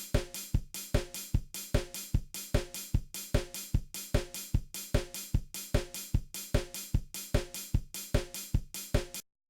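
Drum kit playing a steady beat with kick drum, snare and hi-hat, which stops abruptly near the end.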